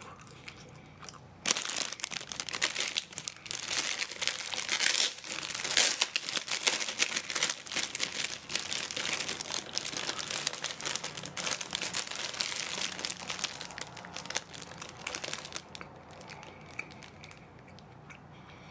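Plastic bread wrapper crinkling and rustling as a packaged bun is handled and unwrapped. It starts suddenly about a second and a half in, is busiest in the first few seconds and dies down near the end.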